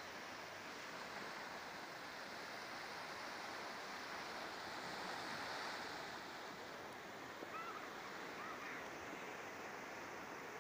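Surf washing on a sandy beach: an even rush of breaking waves that swells to a peak about halfway through and then eases off.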